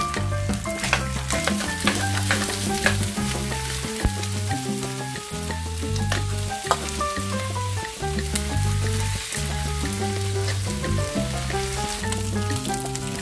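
Bulgur sizzling in a hot frying pan while a metal spoon stirs and scrapes it, with sharp scrapes throughout. Background music with a steady, repeating bass line plays underneath.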